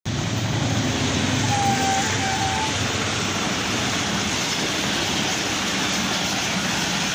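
Passenger train passing at speed: a steady rumble and rushing rail noise of coaches going by.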